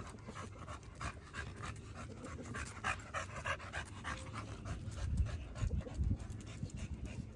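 American Bully dog panting quickly and steadily, with a couple of low thuds about five to six seconds in.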